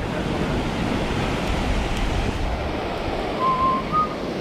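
Ocean surf washing up the beach at the water's edge, with wind buffeting the microphone.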